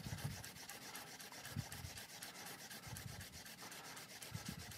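A strip of emery cloth rubbed quickly back and forth around the tip of a golf shaft in even, rapid strokes, scuffing the tip so it will take the epoxy.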